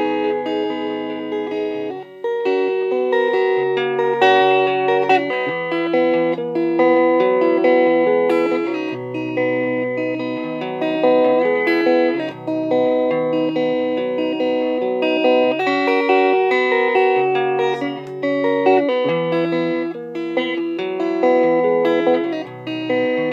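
Guitar music: a plucked, melodic guitar line over a moving bass line, playing steadily throughout.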